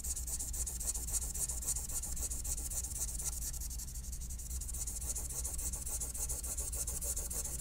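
Green marker rubbing on chart paper in rapid back-and-forth strokes as a box is shaded in, over a steady low hum.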